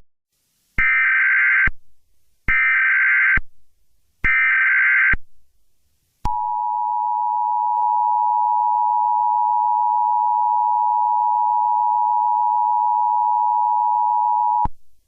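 Emergency Alert System tones. First come three short bursts of digital header data, each just under a second long with short gaps between them. Then the two-tone attention signal sounds as one steady held tone for about eight seconds and cuts off sharply. Together they mark the start of an emergency broadcast alert.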